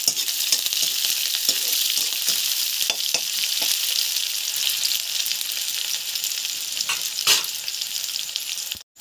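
Sliced onions sizzling as they fry in hot oil in a kadhai, stirred with a spatula that clicks and scrapes against the pan now and then, most sharply about seven seconds in. The sizzle cuts off abruptly just before the end.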